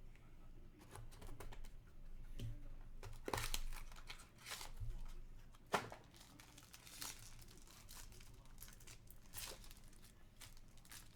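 Trading card pack wrappers crinkling and tearing open, with cards being shuffled and handled, in a string of short crackly bursts and one sharp click a little before the middle.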